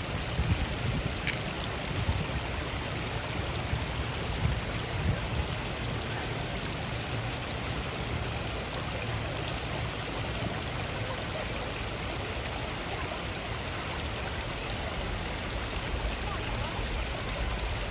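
Flowing water rushing steadily, with a few low bumps in the first few seconds.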